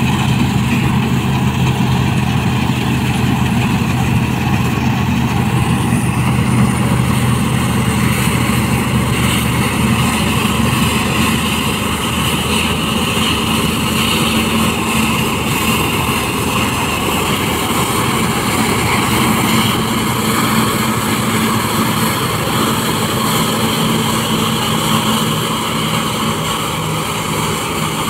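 New Holland TC5070 combine harvester running at work while cutting and threshing barley: a steady engine drone under a constant rushing noise. A low hum drops out about ten seconds in.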